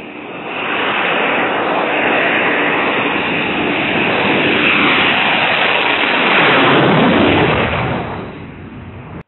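Twin-tailed fighter jet on landing approach, its jet engines roaring as it comes in low overhead. The roar swells quickly, peaks with a falling pitch sweep as the jet passes, then fades away.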